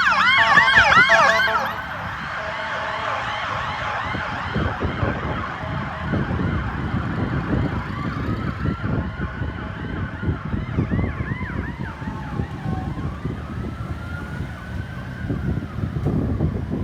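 Ambulance siren in a fast yelp, loud at first, dropping away about a second and a half in. Later a fainter siren wail rises and falls slowly twice over the low rumble of road traffic.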